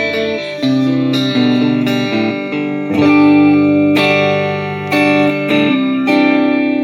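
Boult ST12 Strat-style HSS electric guitar played through a Mooer GE150 Pro with a clean tone, picking a series of chords and notes about once a second; the last one rings out and fades.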